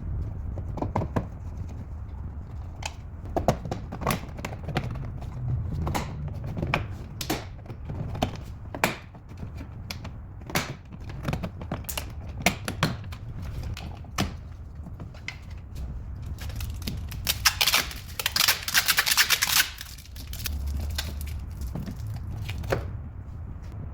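Irregular clicks and knocks from hands and tools working on a car's interior trim. About three-quarters of the way through comes a couple of seconds of dense, scratchy hiss.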